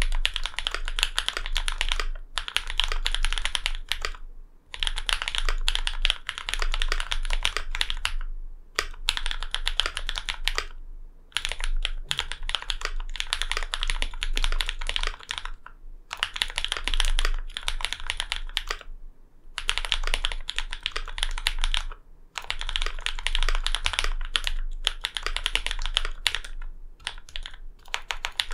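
Steady typing on a LINWORKS Whale75 custom mechanical keyboard with lubed, filmed linear switches (Cherry MX Black housings with Novelkey Cream stems), an aluminium plate, a foamed and tape-modded case, and GMK keycaps. Dense runs of keystrokes are broken by short pauses every few seconds.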